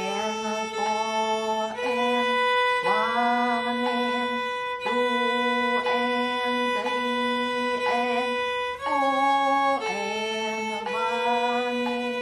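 Viola played with the bow: a slow melody of held notes, changing about once a second, against a steady higher note that sounds through most of it.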